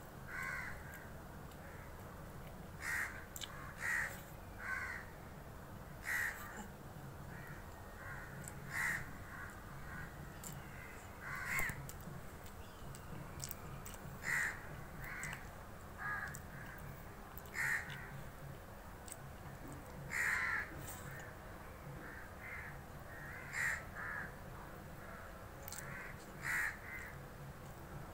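Crows cawing repeatedly nearby, short harsh caws every second or few, about twenty over the stretch, over a faint steady background.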